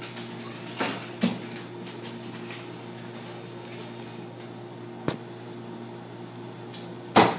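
Steady mechanical hum of restaurant kitchen equipment, broken by four short knocks and clatters, the loudest near the end.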